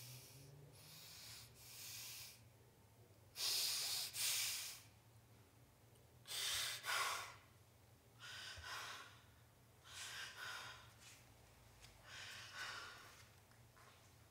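A person breathing heavily: slow, rough breaths in and out, about one every two to three seconds.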